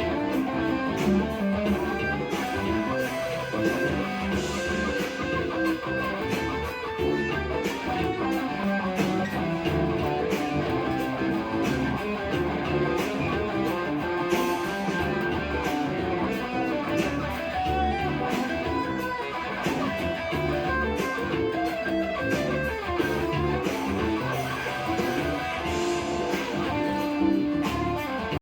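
Music led by plucked guitar, playing on without a break.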